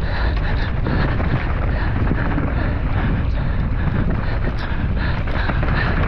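Wind buffeting the microphone of a mountain bike's on-board camera during a fast downhill run, over the steady rumble of knobby tyres on a dirt trail. Small clicks and rattles come from the bike over the rough ground.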